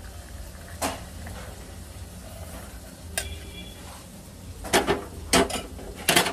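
Tea strained from a steel saucepan through a hand strainer into a cup, with sharp metal clinks of pan and strainer about a second in and near three seconds, then several louder clanks near the end as the pan and strainer are set down. Under it runs the steady low sizzle of spinach sautéing on the stove.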